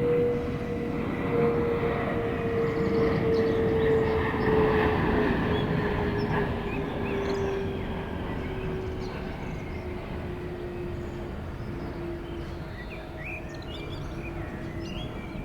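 Jet airliner on landing approach passing low overhead: a steady rushing noise with a whine that slowly falls in pitch, loudest about four to five seconds in and then fading away. Birds chirp faintly near the end.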